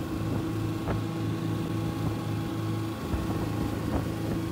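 Twin 250 hp outboard engines idling with a steady, even hum, with a couple of faint clicks.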